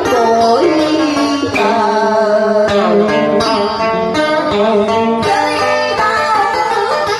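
Cải lương song: a plucked-string accompaniment under a woman singing through a microphone.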